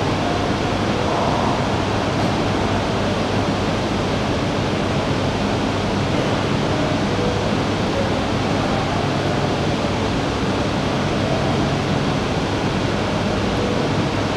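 Steady rushing hum of railway station platform ambience, loud and even throughout.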